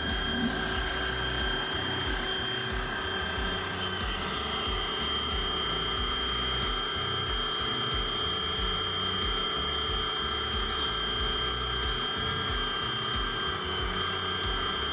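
Xenon HPW410 electric pressure washer running steadily, its motor and pump humming under the hiss of the water jet spraying a motor scooter's wheels. A high whine in the sound grows stronger about four seconds in.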